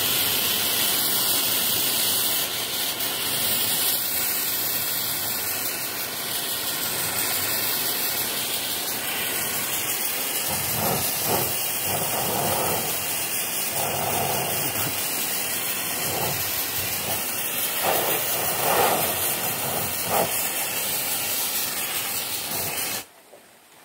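Aerosol hornet-insecticide can spraying a continuous jet, a loud steady hiss. It turns rougher and uneven in the second half and cuts off suddenly near the end as the spray is released.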